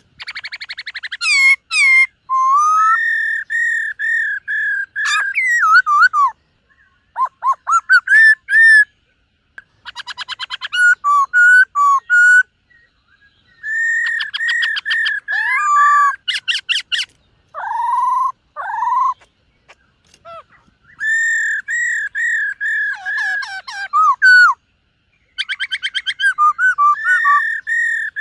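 Black-throated laughingthrush singing: loud phrases of repeated whistled notes, about four a second, mixed with rapid rattling trills and swooping notes, broken by short pauses.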